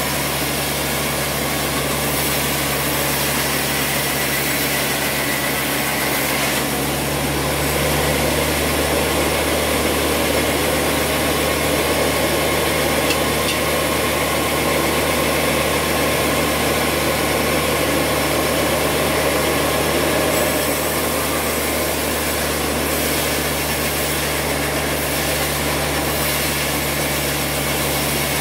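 Large vertical band saw running with a steady hum, its blade ripping lengthwise through a squared timber being fed along the table. The cutting grows louder from about seven seconds in and eases back just past twenty seconds.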